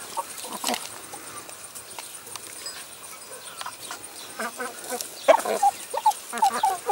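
Chickens pecking at food in a plastic tray, beaks tapping sharply over and over, with a run of short clucks in the second half.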